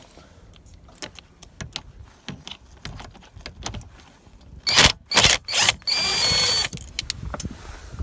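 Handheld power driver backing a screw out of the steering-column trim: light clicks and rattles of bit and screw, then the motor runs in two or three short loud bursts and one longer run with a thin high whine, under a second, near the end.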